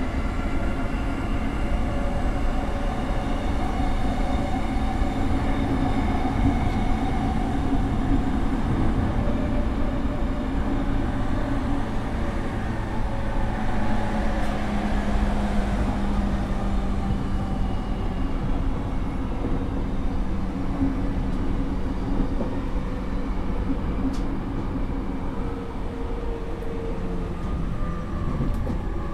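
Running sound inside a JR East E231-series motor car with its Mitsubishi IGBT inverter: a steady rumble of wheels on rail and traction motors, with several faint steady whining tones.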